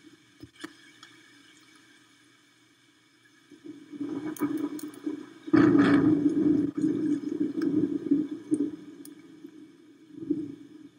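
Storm wind and rain rushing on the nest camera's microphone, swelling into a gust about four seconds in and loudest around six seconds, with a few sharp ticks; a smaller gust comes near the end.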